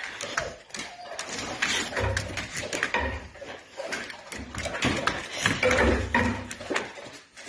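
Alapaha Blue Blood bulldogs roughhousing on a hard floor: rough grunting and growling in two longer bursts, about two seconds in and again near six seconds, over a run of sharp clicks and scrabbles from their nails.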